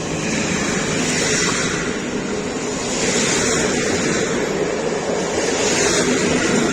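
Train running past, a loud steady rushing noise.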